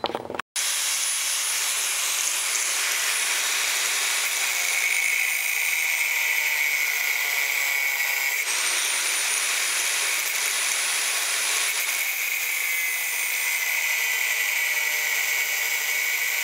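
Angle grinder with an abrasive cut-off disc cutting through steel flat bar: a loud, steady grinding whine that sags a little in pitch now and then as the disc bites.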